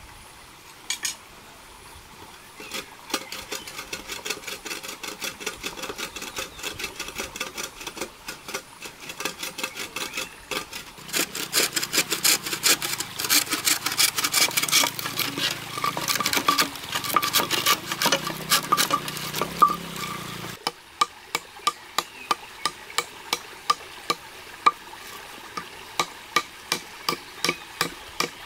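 A hand saw cutting through green bamboo in rapid rasping strokes, louder for a stretch in the middle. About two-thirds of the way through it stops, and a hatchet knocks on the bamboo with steady sharp blows, about one or two a second.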